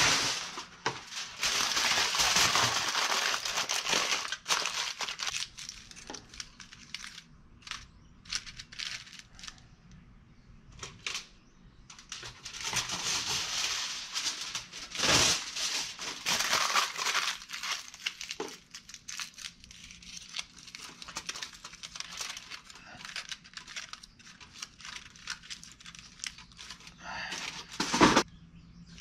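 Aluminum foil being torn and crinkled into a wad, in two long spells of crinkling, one at the start and one about halfway through, with scattered small crackles between. A sharp knock near the end.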